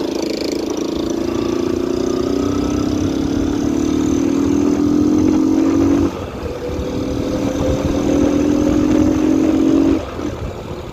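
Yamaha XTZ motorcycle engine, run without an air filter and with a washer in the exhaust, pulling hard with its pitch rising, dropping sharply about six seconds in as a gear is shifted, then rising again before easing off near the end.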